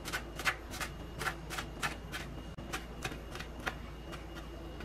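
Chef's knife coarsely chopping fresh coriander on a wooden cutting board: quick, even taps of the blade on the board, about three or four a second.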